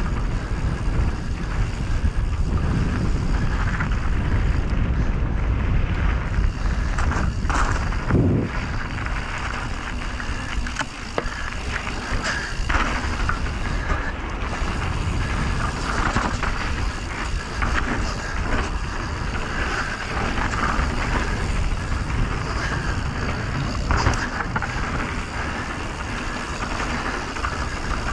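Mountain bike riding down a bike-park trail: wind buffeting the microphone, with tyres rolling over dirt and the Canyon Strive's chain and frame rattling. A few harder knocks from bumps or landings come about a third of the way in and again near the end.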